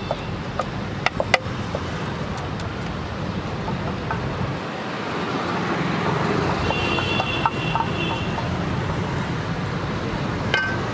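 Steady roadside traffic noise, with a few sharp metal clinks of a ladle against an aluminium cooking pot about a second in as cooked Maggi noodles are tipped out. A brief high tone sounds around the middle.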